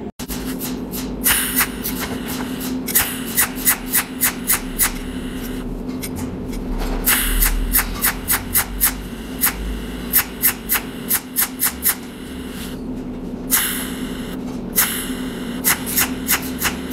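Cold welding machine firing spot-weld pulses, each a sharp crack, in quick runs of several a second with short pauses, as copper filler wire is fused onto the part spot by spot. A steady low hum runs underneath, with two brief hisses.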